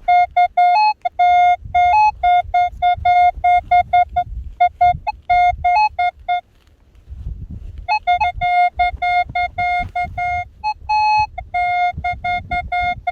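Metal detector sounding on a buried metal target: a rapid run of short beeps at one pitch, a few stepping slightly higher, with a pause of about a second and a half midway. A low rumble sits underneath.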